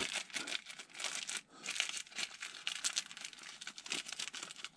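Plastic packet crinkling on and off, with many small crackles, as fingers work a small sealing washer out of it.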